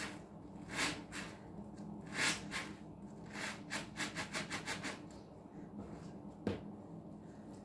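Green sponges soaked in dish soap being squeezed and wrung by hand in a basin of suds: wet squelching of foam and soapy water, with a quick run of squeezes, about five a second, in the middle.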